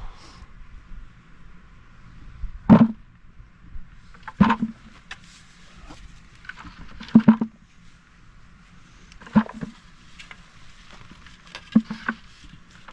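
Five dull thuds, about two to three seconds apart: a shovel striking and lifting soft garden soil while potatoes are dug up.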